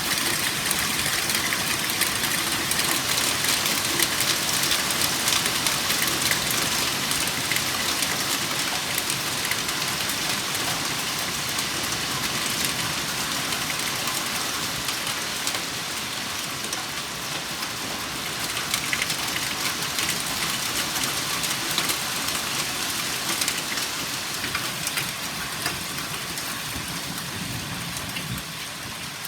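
Heavy hail shower: a dense, continuous clatter of hailstones striking hard surfaces, full of sharp individual ticks, easing slightly toward the end.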